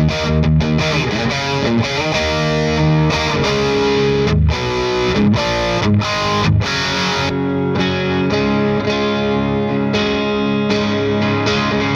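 Electric guitar with P90 pickups played through an 18-watt Satellite Neutron amp boosted by an Airis Effects NoKnobsense, giving an overdriven tone. Quick, choppy chords come first; from about seven seconds in, held chords and notes ring out with less treble.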